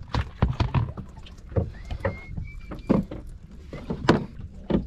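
Irregular sharp knocks and slaps around a small fishing boat, some close together and some about a second apart, over a low steady rumble. A faint high whistle comes about two seconds in.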